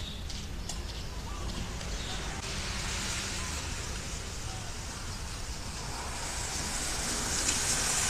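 Steady outdoor background noise with a fluctuating low rumble, growing a little louder toward the end.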